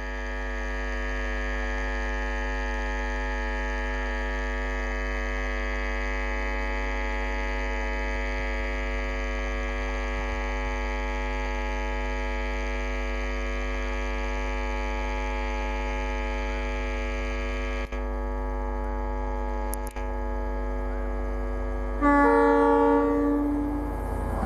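WDP4D diesel locomotive's two-stroke V16 EMD 710 engine working hard as it approaches, a steady drone with many layered tones over a low hum. About 22 seconds in, a louder multi-tone horn blast sounds for about two seconds.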